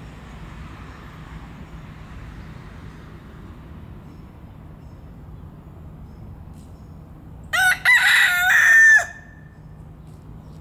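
A rooster crows once, about seven seconds in: a short first note, a brief break, then a longer call that holds on its last note before falling away, about a second and a half in all.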